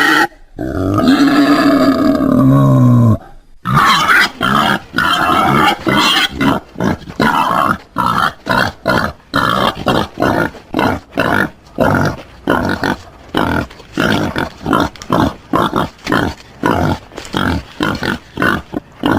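Wild boar vocalising: a drawn-out call that falls in pitch, then, after a short break, a rapid series of grunts, about two or three a second.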